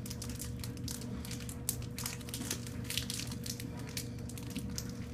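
Foil wrapper of a Pokémon TCG booster pack crinkling and tearing in the hands as it is opened, a rapid irregular crackle over a steady low room hum.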